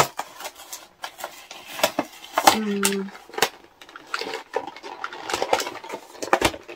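Handling noise of a cardboard toy box: rapid clicks, scrapes and rustles as its taped backing card is pried and peeled away, with some of the printed card tearing off. About two and a half seconds in, a voice gives a brief hum.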